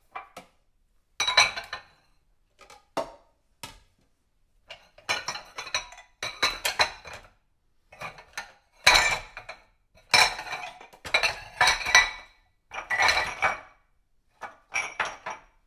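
Dishes being handled: plates, cutlery and glassware clinking and clattering against each other in irregular bursts with brief pauses between them.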